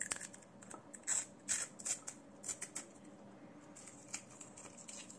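Plastic wrapping on a new watch strap crinkling and rustling as it is pulled off, in quick bursts that are busiest over the first three seconds, then fainter.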